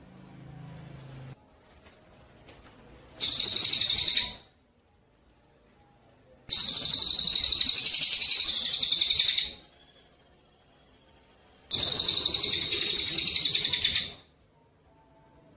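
A songbird singing loud, rapid, high trills in three separate bursts, the middle one the longest, with pauses of faint thin notes between them.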